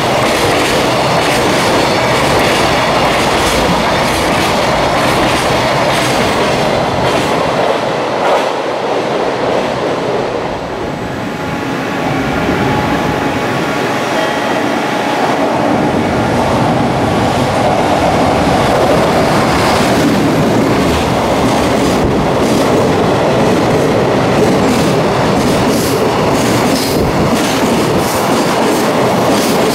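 Long container freight trains passing at speed: the wagons rumble steadily and the wheels clatter over the rail joints. The noise dips briefly about eleven seconds in, then builds again as the next train comes through.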